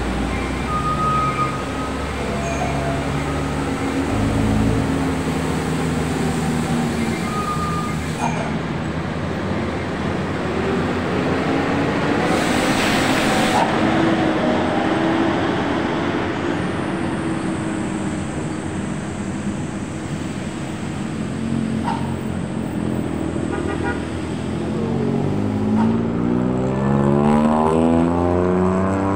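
Heavy diesel trucks and cars running slowly around a tight hairpin bend, their engines droning. Two short horn toots come in the first several seconds, a loud hiss about twelve seconds in, and an engine revving up near the end.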